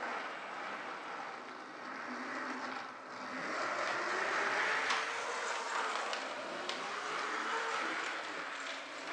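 O scale model trams running on their track: a steady whir of small electric motors and wheels on the rails, growing louder about three and a half seconds in as a tram passes close, with a few sharp clicks.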